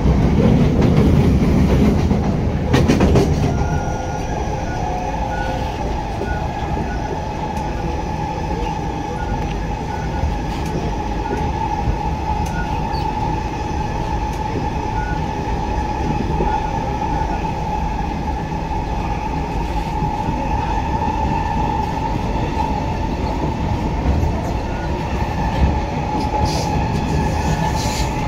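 Singapore MRT train running on its track, heard from inside the carriage: a steady rumble with a constant high whine held throughout. The rumble is louder for the first few seconds, with a brief clatter about three seconds in, then settles to an even run.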